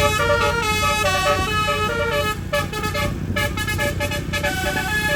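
Bus telolet horn, a set of twelve roof-mounted trumpets driven by an electronic telolet module, playing a quick melody of changing notes over a low engine rumble.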